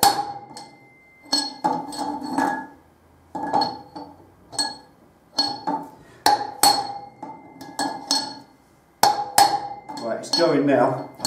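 Hammer striking a metal drift held against a worn steel wheel bearing, driving it out of a cast aluminium motorcycle wheel hub. The metallic strikes ring, and come singly or in quick twos and threes with short pauses between them.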